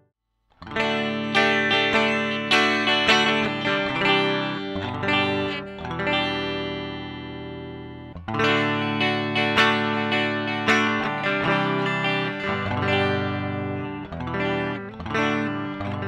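Greco SE 600 Stratocaster-style electric guitar played through a Laney VH100R amplifier and picked up unprocessed by a Sennheiser microphone. Two phrases of sustained picked notes start about half a second in, with a short break near the middle.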